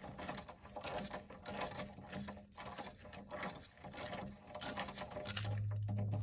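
A ratchet with a hex bit clicking rapidly as a brake pad retaining bolt is backed out of a motorcycle's front brake caliper. A steady low hum comes in near the end.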